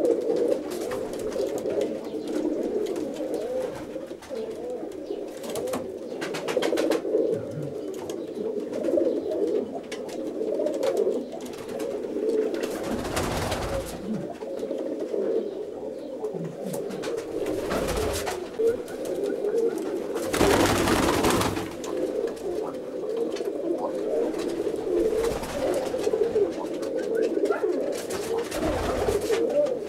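Domestic roller pigeons cooing continuously in an overlapping, warbling chorus, with a few short rushes of noise.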